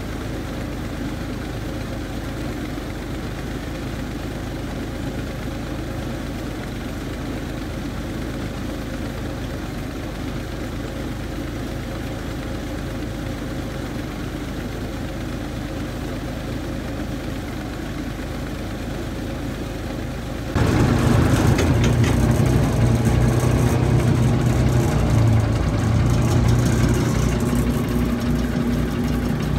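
Engine driving a tube-well boring rig, running steadily at a constant speed. About two-thirds of the way in it becomes suddenly louder and closer, with a low, even throb.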